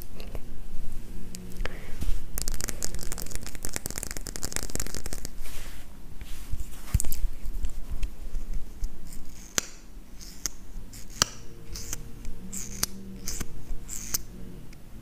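Close-miked makeup handling: sharp clicks of cosmetic cases and tools, with a few seconds of rapid, crisp scratching and rustling about two seconds in.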